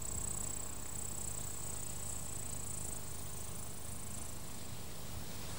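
Faint, steady high-pitched insect song from a meadow, fading away in the second half, over a low background hum.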